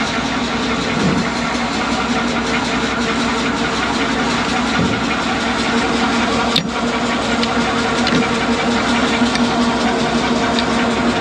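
Grain running out of a hopper-bottom trailer into a jump auger, the auger flighting turning in it, over a steady engine drone that powers the augers. A single sharp click about six and a half seconds in.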